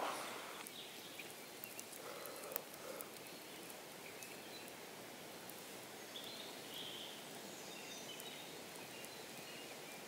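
Faint outdoor ambience: a steady low hiss with a few light clicks in the first few seconds.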